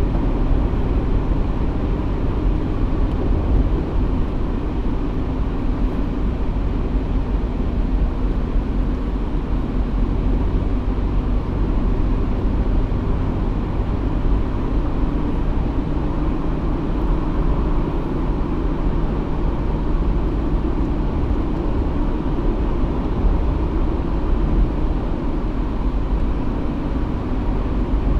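An off-road 4x4's engine running steadily with a deep rumble as the vehicle moves slowly along.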